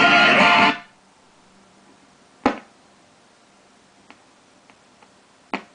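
Pioneer SX-780 receiver being tuned off an FM station: the guitar music from its speakers cuts off less than a second in, and the muted tuner stays almost silent with a faint low hum between stations. A loud, quickly fading blip comes through about two and a half seconds in, a few faint ticks follow, and another short blip comes near the end as the dial sweeps past other signals.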